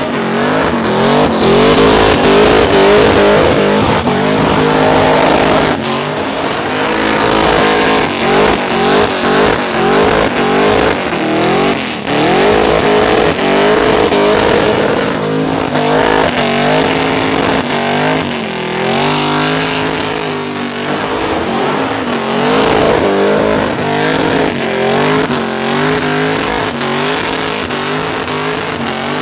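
Supercharged Holden VK Commodore's engine held at high revs through a burnout, the revs rising and falling again and again over the steady hiss of spinning tyres.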